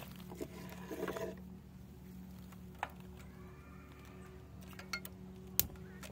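Control knob of a Gas One portable butane stove being turned, with a few light clicks and then one sharp snap of the piezo igniter about five and a half seconds in.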